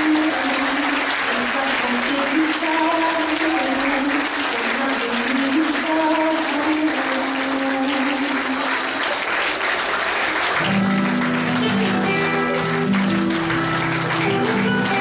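Audience applauding over music: a melody plays through the clapping, and about ten seconds in a lower, fuller accompaniment comes in as the clapping thins.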